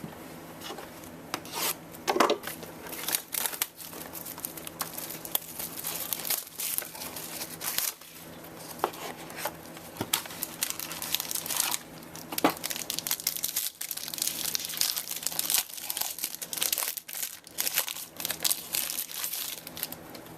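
Plastic wrapping crinkling and tearing in irregular bursts as a sealed trading card box is unwrapped and opened.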